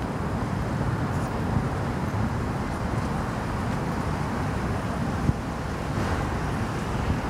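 Steady road traffic noise from cars passing on a busy city street, with some wind rumbling on the microphone.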